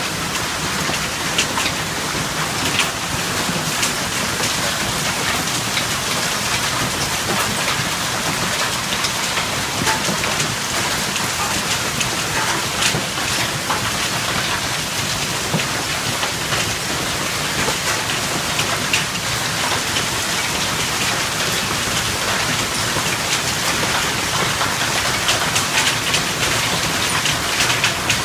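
Heavy hail falling: a dense, steady pelting of hailstones on the ground, with many sharp ticks from individual stones striking hard surfaces.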